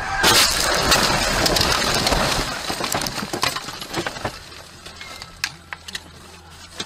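A car crashing off the road into bushes and trees: a loud rush of impact and branches lasting a couple of seconds, with the windshield cracking and glass and debris clinking. Scattered snaps and clicks follow as the car comes to rest in the branches.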